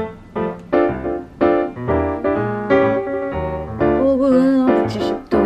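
Intro music: a piano playing a run of struck chords, each fading after it is hit, with a held, wavering note about four seconds in.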